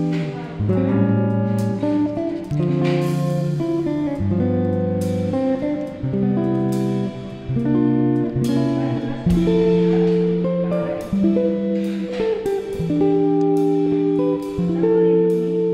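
Instrumental background music: a plucked guitar melody over a steady low bass line, notes changing about once a second.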